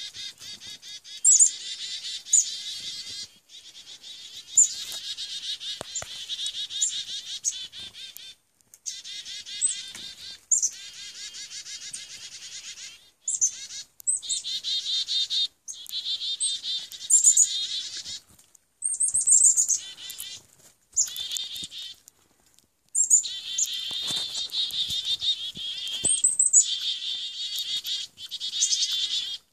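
Chickadees giving chick-a-dee calls over and over: short high opening notes followed by runs of buzzy dee notes, in bursts with brief pauses between them.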